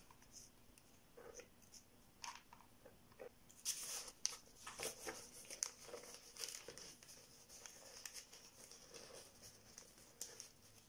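Faint rustling and crinkling of newspaper strips being handled and pressed onto a paper-covered helmet form, with short scattered crackles, the loudest about four seconds in.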